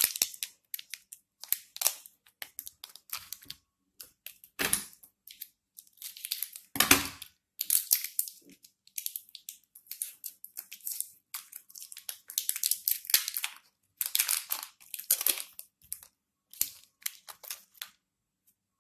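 Hands kneading the two parts of Shilpkar epoxy clay together right by the microphone: irregular crackling and rustling rubs, with louder ones about five and seven seconds in, stopping just before the end.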